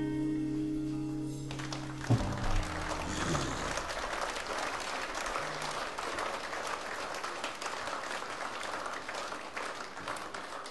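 A blues band holds its last chord, which ends with a final hit about two seconds in. A live audience then applauds through to the end, all slowed down and lowered in pitch.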